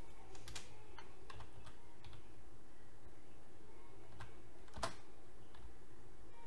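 Computer keyboard keystrokes as a file name is typed: a handful of scattered, irregular key clicks, the loudest about five seconds in, over a low steady hum.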